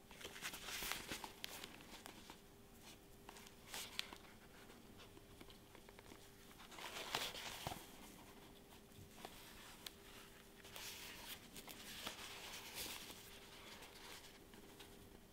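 Gloved hands handling and turning a small cardboard product box: faint rustling and scraping in several bursts, with a few light clicks. A faint steady hum runs underneath.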